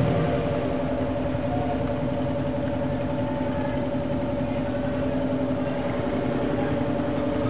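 Small motorcycle engines idling steadily.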